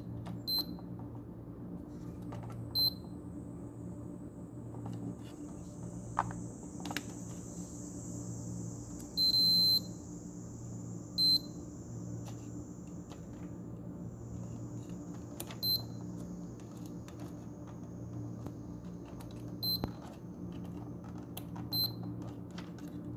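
Fluke digital multimeter in diode-test mode beeping as its probes touch components on a fan's circuit board: about seven short high-pitched beeps, one of them held for about a second near the middle, with small probe clicks over a steady low hum.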